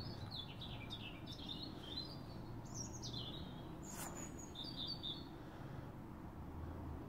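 Bird chirping, a run of quick high chirps and short gliding notes that stops about five seconds in, over a low steady hum, with a single click about four seconds in.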